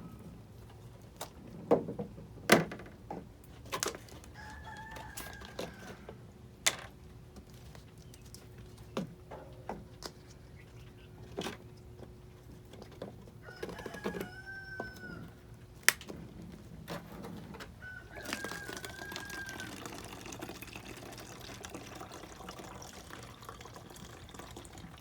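A rooster crowing three times, with clucking, over scattered sharp knocks and thuds; the knocks are the loudest sounds.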